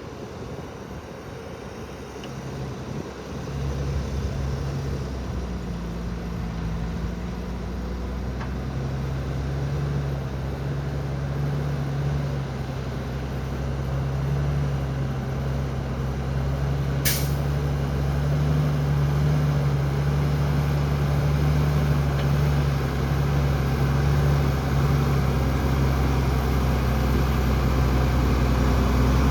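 Heavy diesel engine of earthmoving machinery running steadily and growing gradually louder, with one brief sharp hiss about halfway through.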